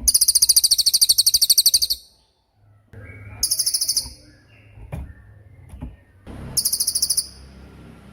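A cililin songbird singing its rapid-fire 'tembakan' song: three very fast, high-pitched trills, a long one of about two seconds followed by two shorter ones, with faint chips between them.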